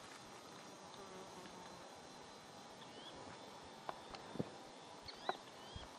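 Faint open-air background: a steady soft hiss with a few short high chirps, and several sharp clicks in the second half, the loudest about four and five seconds in.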